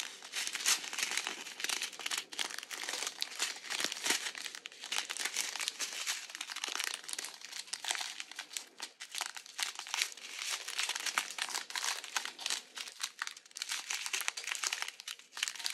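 Strips of small zip-lock plastic bags filled with diamond painting drills crinkling and crackling as they are handled and shuffled, a continuous run of rustling with many sharp little crackles.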